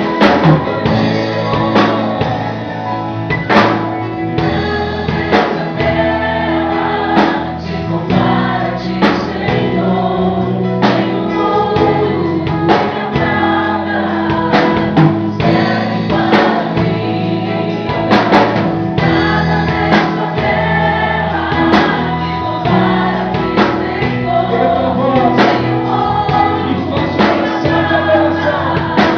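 Gospel worship song: several voices singing together over a band, with a steady beat of percussion and bass.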